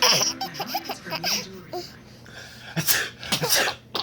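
A baby laughing in many short, high-pitched bursts, with a sharp noisy burst about three seconds in.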